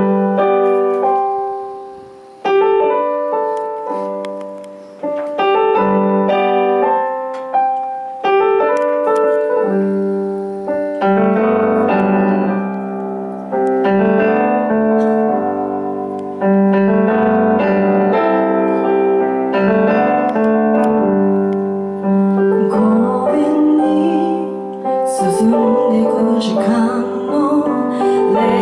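Solo piano playing the introduction of a ballad, chords struck and left to ring out, a couple of seconds apart at first and then more flowing. A woman's singing voice comes in near the end.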